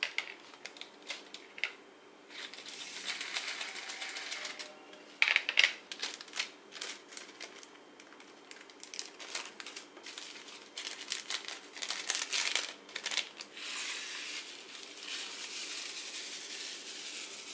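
Small plastic resin diamond-painting drills rattling and pouring between a plastic sorting tray and a zip-lock plastic bag, with the bag crinkling and many scattered clicks. A dense pouring rattle comes twice, once a few seconds in and again near the end.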